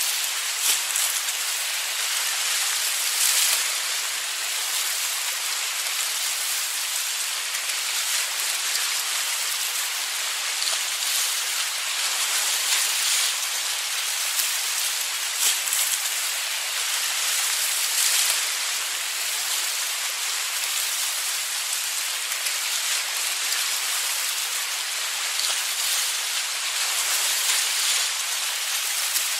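Waves on a beach breaking and washing continuously, a steady hiss of surf without distinct swells, with brief crackles of foam.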